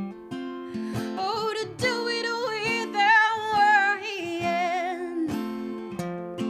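Live acoustic guitar strumming chords under a sung melodic line held with heavy vibrato, the voice swelling in the middle and easing off toward the end.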